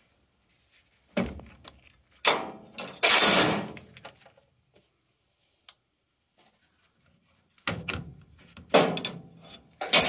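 Hollow sheet-metal clunks and a scrape from an air handler's filter slot and its metal filter clips being handled. There is one knock about a second in, a cluster of louder clunks with a half-second scrape around two to four seconds in, and more knocks near the end.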